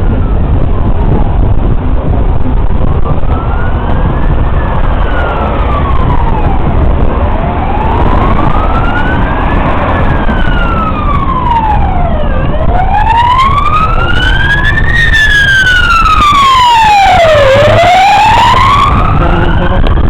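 Emergency vehicle siren wailing in slow rising-and-falling sweeps about five seconds apart, growing louder toward the end, over a steady rumble of traffic.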